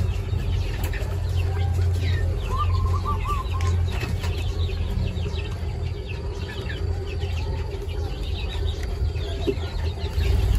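A flock of quail hens calling: many short, high, falling chirps throughout, with a brief run of lower warbled notes about two to three seconds in, over a steady low hum.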